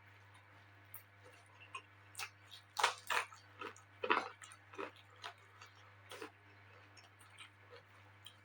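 A person chewing food close to the microphone, with wet mouth clicks and smacks, loudest about three to four seconds in, over a faint steady low hum.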